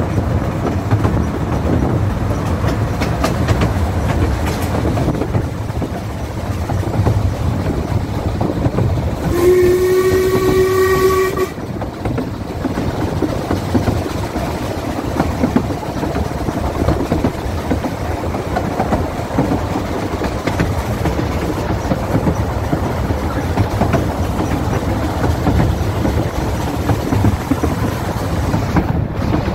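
Ffestiniog Railway narrow-gauge train running with a steady rumble. About a third of the way in, the locomotive's whistle sounds once, a slightly rising tone lasting about two seconds.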